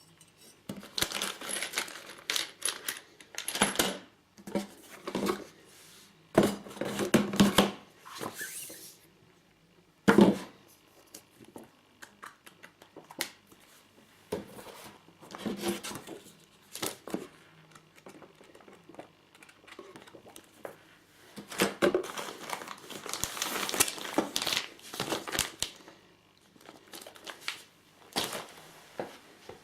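Packaging being handled: irregular bursts of crinkling and tearing, with a few sharp knocks, the loudest about ten seconds in.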